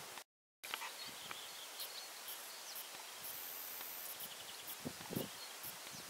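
Rustling and a few soft thuds from a horse moving in long grass, most of them near the end, over a faint outdoor background with short high chirps. The sound cuts out completely for a moment just after the start.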